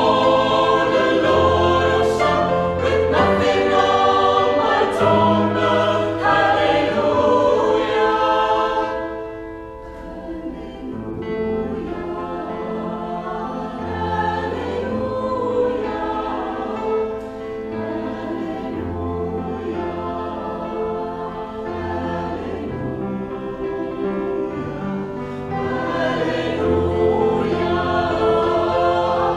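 Mixed vocal group of men and women singing a song together in harmony. The singing drops to a softer passage about a third of the way in and swells louder again near the end.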